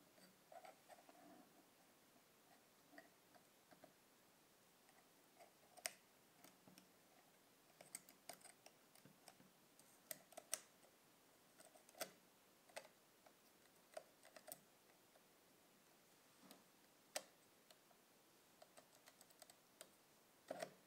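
Light clicks and small taps from fingers turning and seating the front lens parts of a Minolta Hi-Matic 7s rangefinder camera. They come at irregular intervals, with a handful of sharper clicks among the softer ticks.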